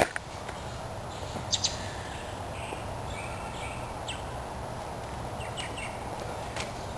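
Outdoor ambience: a steady low background with a few short, high bird chirps scattered through it.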